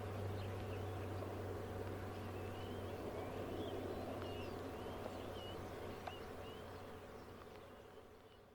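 Distant drone of a Lockheed Martin C-130J-30 Super Hercules's turboprop engines after takeoff, growing fainter, with small birds chirping over it; the sound fades away near the end.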